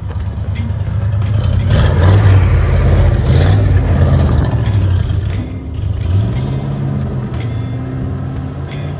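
1971 Dodge Power Wagon 100 pickup's engine and exhaust running and revving as the truck pulls away, the sound fading as it gets farther off.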